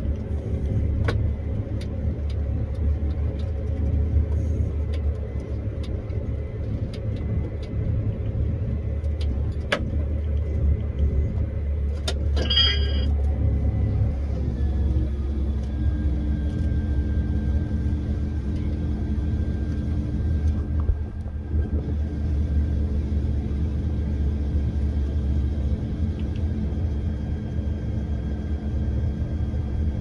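Combine harvester running, heard from inside its cab: a steady low engine drone with light clicks. A brief high chirp comes about twelve seconds in, and from about fourteen seconds a steady higher whine joins the drone.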